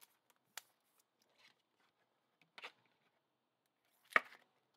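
Trading cards being handled: a few faint, short clicks and rustles, the loudest about four seconds in.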